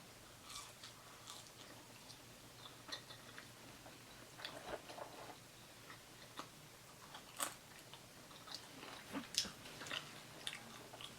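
Close-miked chewing of a cheesesteak sandwich: faint, wet mouth clicks and soft crunches at irregular intervals.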